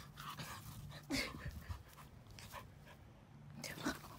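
French bulldog puppy panting and breathing in short, faint spells, with a tennis ball in its mouth.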